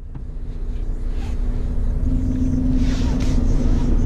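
Renault T-range truck's diesel engine idling, heard from inside the cab: a steady low rumble with a constant hum, growing louder over the first couple of seconds. A short hiss comes about three seconds in.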